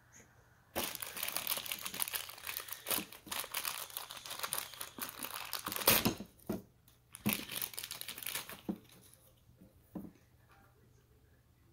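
Crinkly toy wrapping being crumpled and torn open by hand: a dense run of crackling for about eight seconds with a short break past the middle, then a few light taps as it dies away.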